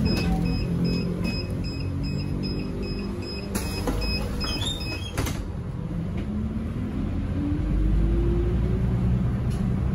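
Mitsubishi Fuso bus with its engine running and a door warning beeper sounding about twice a second. Two short hisses come around four and five seconds in, and the beeping stops after the second. The engine then revs up steadily as the bus pulls away.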